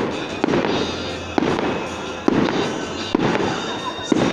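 Aerial fireworks shells bursting with a sharp bang about once a second, each bang trailed by a rumbling echo.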